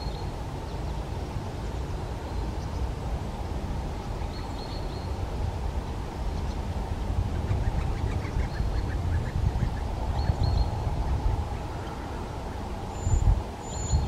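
Treecreeper giving short, thin, high calls, a few seconds apart, over a steady low background rumble.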